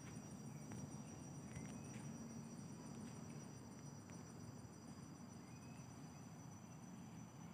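Faint, steady high-pitched calls of forest insects, one of them pulsing evenly a few times a second, over low background hiss.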